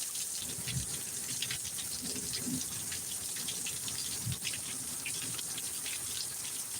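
Heavy rain pouring down in a thunderstorm downpour: a steady rush of water with a dense patter of drops and splashes.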